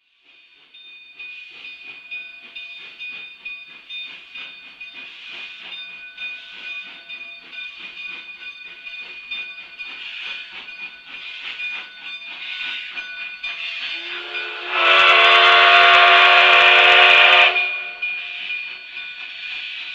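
Narrow-gauge steam locomotive pulling out, its exhaust chuffing roughly once a second over a steady hiss of steam. About three quarters of the way in, the steam whistle sounds one long blast of about three seconds.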